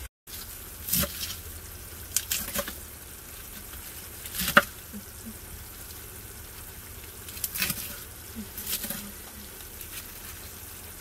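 Knife chopping romaine lettuce on a wooden cutting board: a handful of sharp, irregularly spaced knocks, the loudest about four and a half seconds in, over a low steady hum.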